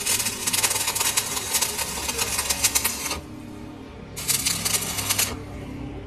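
Metal shaft being cut on a lathe: bursts of rapid, dense scraping and ticking over the machine's low hum. A long burst of about three seconds stops, a short one follows about a second later, and cutting resumes at the very end.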